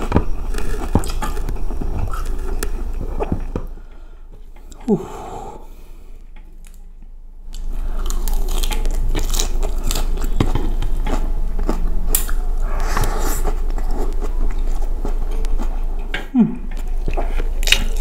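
Close-miked chewing of a mouthful of spiced rice eaten by hand, with wet smacking and small crunches. The chewing goes quieter for a few seconds about four seconds in, then picks up again.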